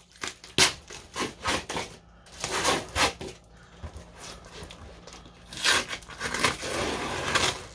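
A cardboard shipping box being handled and its packing tape picked at by hand: irregular scratching and rubbing on the cardboard, with a longer stretch of tape tearing and peeling starting about two-thirds of the way through.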